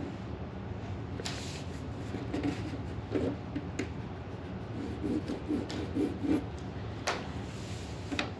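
Drawing strokes on paper: a scratching, rubbing sound in irregular strokes, with a few sharper scrapes and a quick run of about five short strokes a little past the middle.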